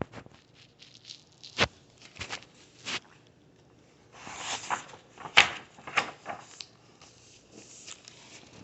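Handling noises of a picture book: scattered clicks and taps with a couple of short paper rustles as a page is turned.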